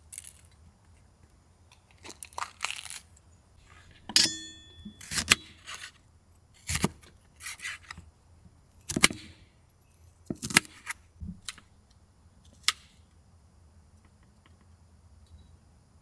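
Irregular handling sounds at camp: short clicks, knocks and rustles, with a brief ringing metallic clink about four seconds in, tapering off in the last few seconds.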